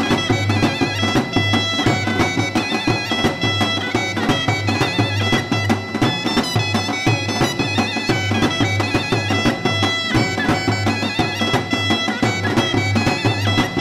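Traditional folk music: a reedy wind instrument plays an ornamented melody over a regular drum beat.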